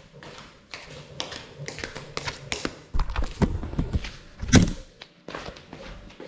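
Close handling noise picked up by a small FPV drone's onboard camera as it is lifted off a tiled floor and put back down. Scattered taps and rustles give way to a burst of heavy thumps and knocks about three to four and a half seconds in, the loudest near the end of that burst. Lighter footsteps in flip-flops follow, over a faint steady hum. The drone's motors are not running.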